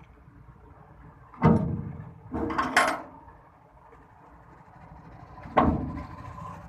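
Four sharp knocks: one about a second and a half in, two close together a second later, and a last one near the end, each ringing briefly.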